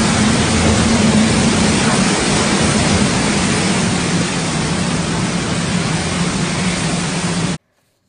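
Storm wind and heavy rain, a loud steady rush with wind noise on the microphone, cutting off suddenly near the end.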